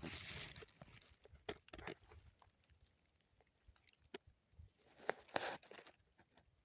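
Footsteps crunching and rustling through dry leaf litter, faint and irregular, loudest in the first second and again about five seconds in.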